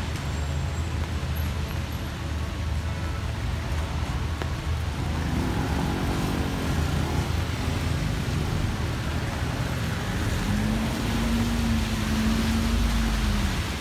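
City street traffic on wet roads in heavy rain: a steady hiss over the low rumble of passing cars, with a vehicle's engine tone holding for a few seconds near the end.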